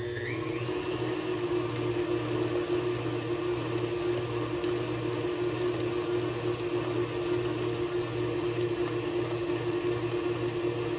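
Electric tilt-head stand mixer running its paddle through soft butter. Its motor whine rises as the speed is turned up, then holds as a steady hum with a low pulse about twice a second from the paddle working the butter.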